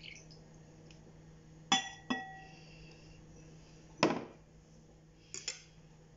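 A glass clinking twice against a hard surface, each clink leaving a brief ring, then a louder knock about four seconds in and two light taps near the end.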